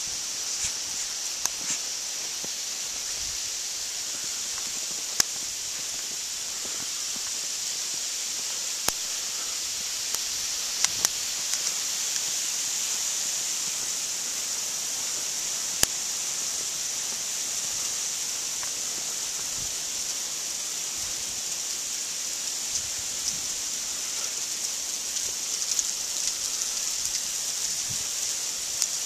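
Steady high-pitched hiss, with a few isolated sharp clicks scattered through it.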